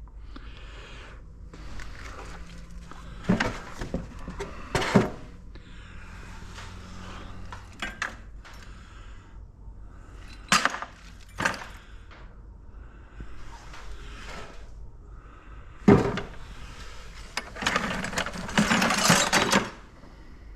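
Scrap metal pieces being handled and set down, giving scattered sharp clinks and knocks, with a longer rattling clatter near the end.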